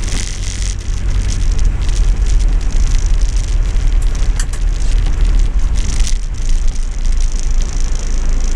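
Inside the cab of an ex-MoD Land Rover 110 hard top on the move in rain: a steady low engine and road rumble under the hiss and patter of rain on the roof and windscreen, with a couple of sharp knocks about halfway through.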